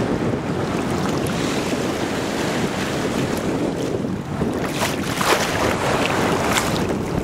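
Wind buffeting the microphone over sea water lapping and sloshing, with a few sharper splashes in the second half.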